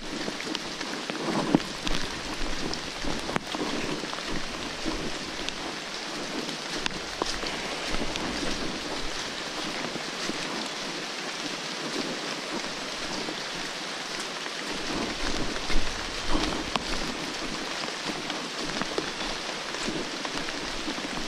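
Steady rain falling on forest leaves and the hikers' gear, a dense hiss dotted with many small drop clicks, with a few louder thumps from walking on the wet trail.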